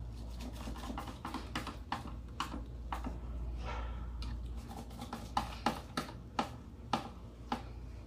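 Irregular small clicks and taps of wiring being fitted into the screw terminals of plastic magnetic contactors, over a steady low hum.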